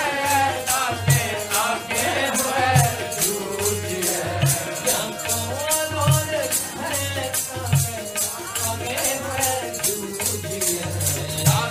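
Sikh shabad kirtan music: a wavering melody over a steady, fast rattling percussion beat, with a deep drum stroke a little more than once a second.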